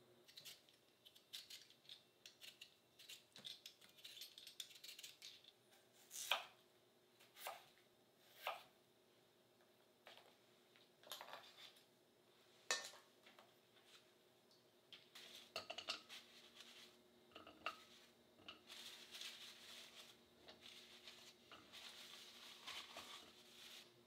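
Quiet kitchen handling sounds: scattered light clinks and taps of a spoon on glass bowls and dishes, then knife strokes on a cutting board, with a few seconds of soft scraping near the end. Two sharper taps stand out, about a quarter and half way through.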